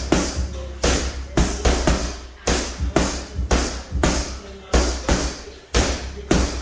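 Punches landing on a heavy punching bag in quick succession, about two solid thuds a second with the chain or bag rattling after each.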